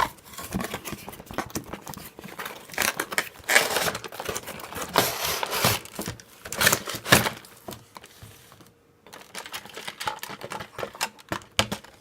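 Cardboard and plastic packaging being handled and opened, with irregular crinkling, rustling and tearing and a few clicks and knocks.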